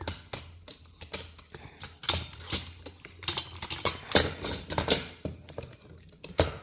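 Metal drawer rails and screws being handled and fitted against a particleboard panel during flat-pack dresser assembly: a run of irregular clicks and knocks.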